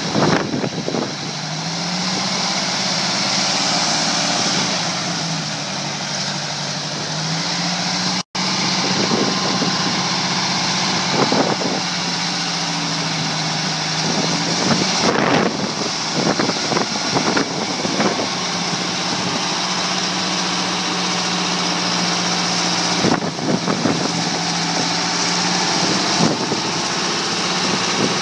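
Diesel engine of a heavy-haul truck running as it pulls a heavily loaded trailer slowly, its pitch dipping and rising with the throttle in the first several seconds, then holding steady. Scattered sharp clunks come and go, most of them in the second half.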